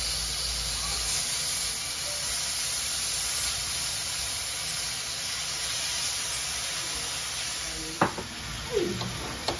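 Asparagus sizzling steadily in a hot cast-iron pan as it is turned with metal tongs. A sharp clack of the tongs against the pan comes near the end.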